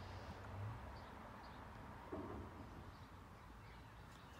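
Outdoor riverbank ambience: low wind rumble on the microphone, easing after the first second, with a few faint bird chirps and a soft knock about two seconds in.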